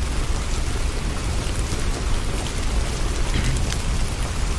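Steady rainfall: an even hiss with a low rumble beneath and a few faint scattered drop ticks.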